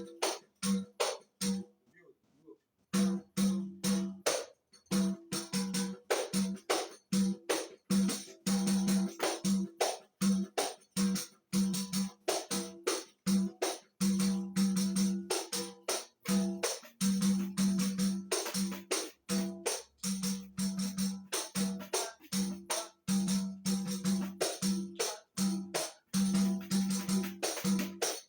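Tamborims struck with sticks, playing a quick samba rhythm, the partido alto pattern. The playing drops out about two seconds in and starts again a second later.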